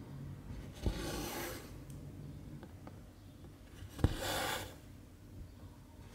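Needle and embroidery thread pulled through cross-stitch fabric twice. Each stitch gives a sharp tick followed by a brief hiss as the thread is drawn through.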